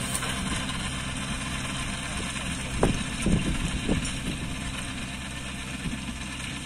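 Kubota 21 hp mini tractor's diesel engine running steadily while pulling a rotavator through the soil, with a few brief thumps about three seconds in.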